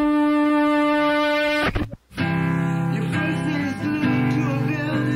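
Background music: a long held note that cuts off just under two seconds in, then after a short gap a full band-style piece starts, with a steady bass layer and a melody that bends in pitch.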